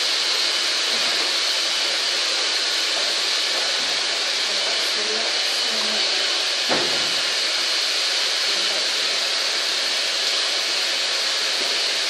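A steady, even hiss with a single sharp knock about seven seconds in.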